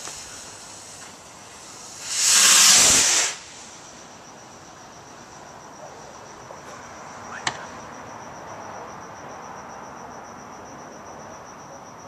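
Black Cat strobing rocket launching: a loud hiss lasting about a second, beginning about two seconds in, as its motor fires. A single short sharp pop follows about seven and a half seconds in. Crickets chirp in a steady high trill throughout.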